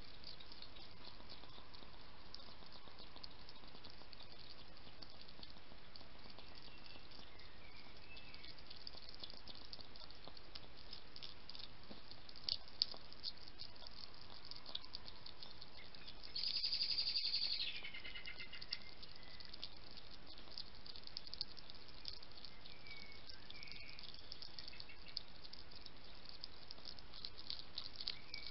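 European hedgehog crunching dry pellet food from a dish: a steady scatter of small crisp crunches and clicks over a faint hiss. A little past halfway a short high-pitched chirping call lasts about a second and stands out above the eating, with a couple of fainter chirps elsewhere.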